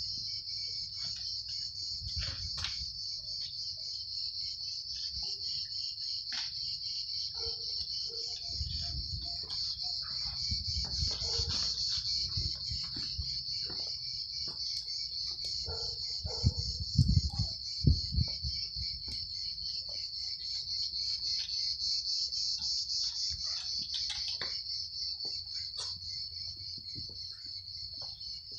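Steady, shrill chorus of insects, a continuous high-pitched drone with a fine rapid pulse. A few dull low thumps stand out about two-thirds of the way through.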